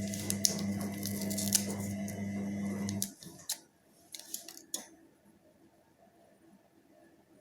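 Steady electrical hum from a mains-powered machine with scratchy rubbing and light clicks over it; the hum cuts off suddenly about three seconds in, leaving a few faint taps.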